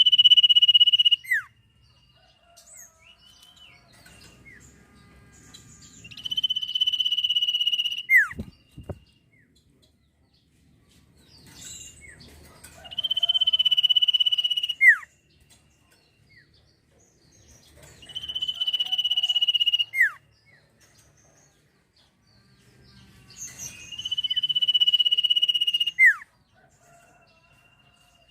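Sirtu (common iora) singing a long, steady, high whistle that ends in a quick downward slur. The whistle repeats about every six seconds, five times in all, the first already under way at the start. There is a single low thump just after the second whistle.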